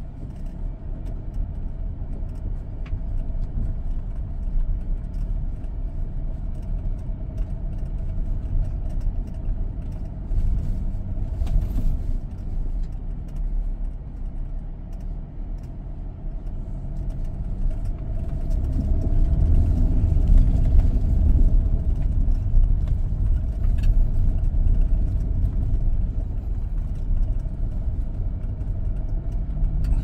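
SsangYong Rexton Sports Khan pickup's diesel engine and drivetrain running with a steady low rumble on an off-road course, growing louder about eighteen seconds in before easing back.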